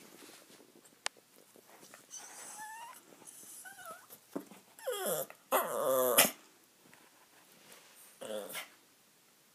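A Bichon Frise dog whining and crying in a string of high, wavering calls, the loudest and longest about five and a half seconds in and a shorter one near the end. A single sharp click comes about a second in.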